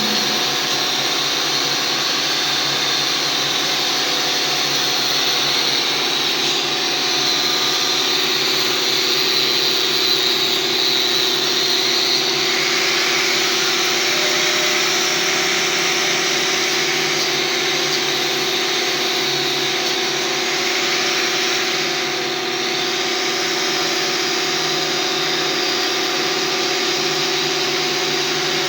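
Handheld electric power tool running steadily with a constant motor hum, working on old iron.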